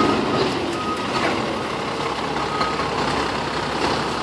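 Backup alarm of a Seagrave fire engine pumper beeping as the truck reverses, a few spaced beeps (one at the start, one about a second in, one about two and a half seconds in) over the steady running of the truck's engine.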